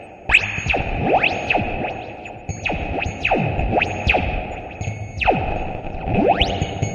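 Electronic synthesizer music with pitch sweeps that repeatedly rise and fall, about one every second, over a sustained high tone.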